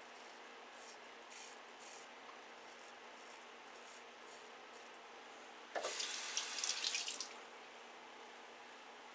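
A few faint scrapes of a shavette blade across lathered stubble, then about six seconds in a tap runs into the sink for about a second and a half, the loudest sound, as the razor is rinsed.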